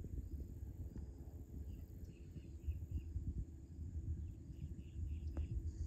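Outdoor ambience: an uneven low rumble of wind on the microphone, with two faint runs of short, quick chirps about two seconds apart.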